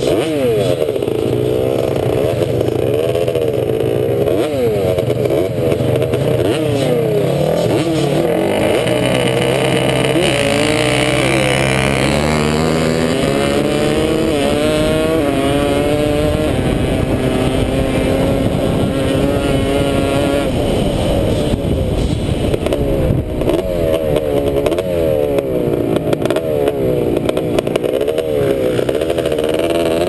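Sport quad (ATV) engine ridden hard across sand, revving up and dropping back again and again, with one long climbing rev about halfway through.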